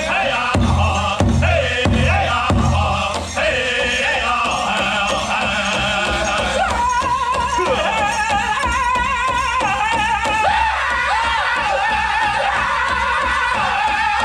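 Powwow drum group performing a chicken dance song: men's high-pitched voices singing together over a steadily struck drum. The drum beats heaviest in the first three seconds, and a high wavering vocal line stands out from about seven seconds on.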